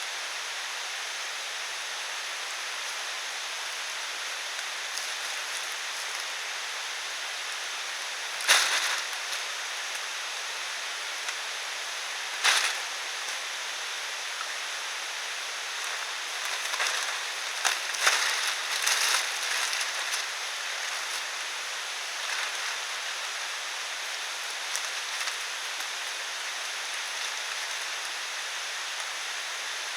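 Steady hiss of rain in the forest. Over it come a few sharp knocks and rustles from a tarp roof being rigged: single knocks about a third and halfway through, then a busy cluster of handling noise a little past the middle.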